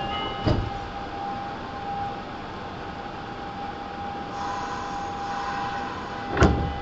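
Nagoya Municipal Subway 5050 series train heard from on board: a steady hum at several pitches over a rushing rumble, with a short thump about half a second in and a louder thump near the end.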